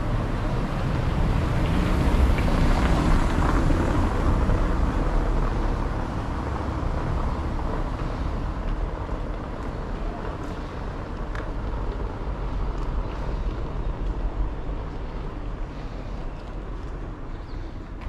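A car driving past on a cobblestone street, its rolling tyre noise swelling for a few seconds and then slowly fading as it moves away.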